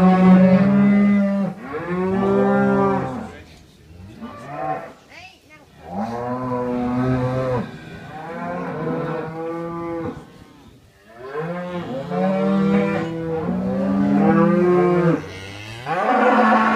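Several cows mooing over and over, long calls overlapping one another at different pitches, in bouts separated by short pauses.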